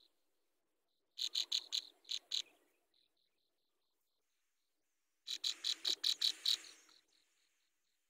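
Small songbirds at a grass nest giving two bursts of rapid, harsh chattering calls, each about a second and a half long, the second burst a few seconds after the first. A faint, regular high ticking runs between and after the bursts.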